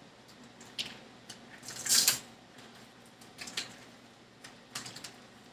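Kitchen handling noises: scattered light clicks and taps, with a short, louder rustle or hiss about two seconds in.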